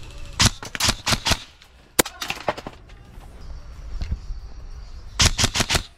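Airsoft rifle firing rapid semi-automatic shots in bursts. There are about five quick shots in the first second, a single sharp crack at about two seconds followed by a few softer ones, and another burst of about five near the end.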